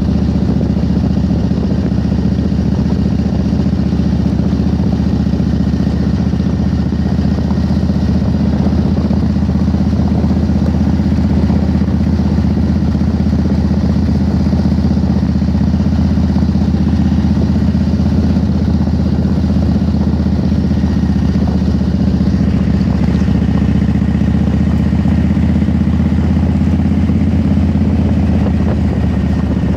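Cruiser motorcycle engine running steadily while the bike rides along a gravel road, heard from the rider's seat.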